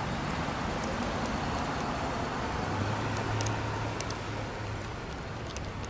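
Police cruiser driving past, its engine a steady low hum for a couple of seconds midway through, over a constant rumble of traffic noise.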